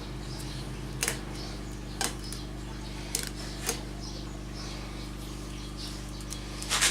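A steady electrical hum in a small workshop, broken by a few sharp clicks and taps of small objects being handled: single ones about one, two and three seconds in, and a quick cluster near the end.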